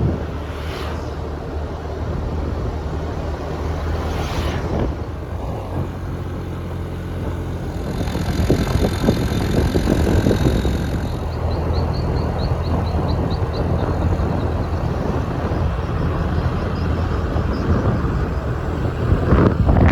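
A vehicle engine running steadily with road and wind noise while on the move, swelling a little partway through.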